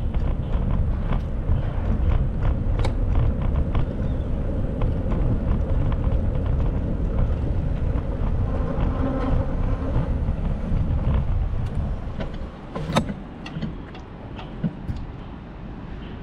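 Street traffic and road rumble heard while riding a bicycle in city streets: a steady low rumble scattered with small clicks, dropping off about twelve seconds in, with one sharp click just after.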